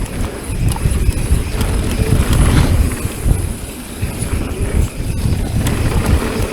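Wind rumbling on a mountain bike rider's camera microphone, with tyres on the dirt trail and the bike rattling and clicking over bumps during a descent.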